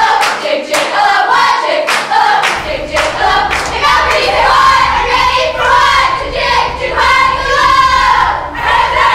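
A group of teenage girls chanting a team cheer in unison while clapping their hands in rhythm.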